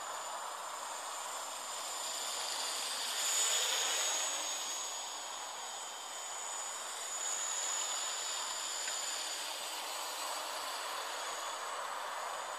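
Gaui 330X-S quadcopter's electric motors and propellers whining high-pitched in flight, swelling as it passes about three seconds in and again a little past the middle, over a steady hiss.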